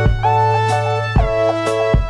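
Instrumental background music: a melody of held notes over a steady bass, with a regular drum beat.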